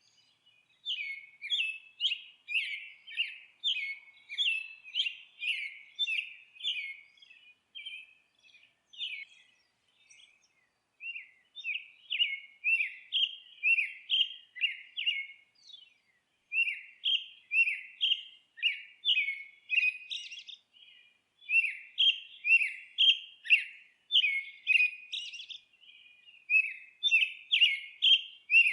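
A bird singing a string of repeated high chirps, about two a second, in runs broken by short pauses.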